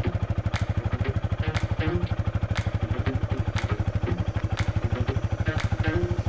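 BMW R nineT's boxer twin idling, an even, rapid pulsing exhaust beat, with a sharp tick about once a second.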